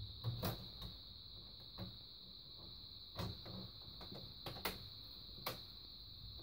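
Scattered light clicks and knocks, about eight, as hands press along the plastic frame and clips at the edge of an LED TV panel, over a steady faint high-pitched whine.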